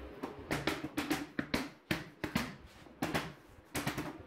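A small hammer tapping lightly on a PVC folding door's frame channel: about a dozen short, sharp knocks at an irregular pace, seating the door in its frame.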